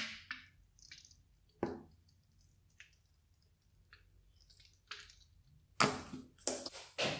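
A plastic squeeze bottle of thick pink colouring squirting onto white glue: a snap of the flip-top cap at the start, then short, separate wet squelches and sputtering spurts, the loudest three close together near the end.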